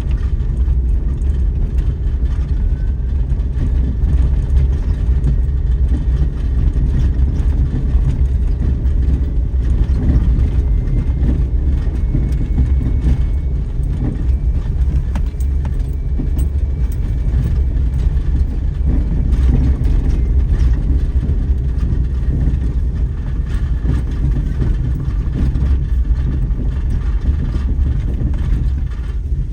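Daihatsu Terios Kid driving, a steady low rumble of engine and road noise.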